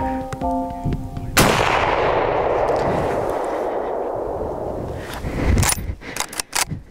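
A single hunting-rifle shot about a second and a half in, its report rolling away and fading through the forest over several seconds. Near the end come a handful of short, sharp clicks and knocks.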